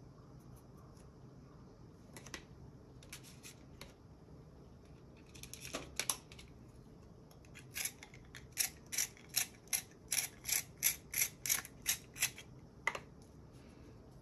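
Colored pencil turned in a small handheld canister sharpener: a quick run of about fifteen scraping turns, roughly three a second, from about eight seconds in. A few scattered scrapes and clicks of handling come before it.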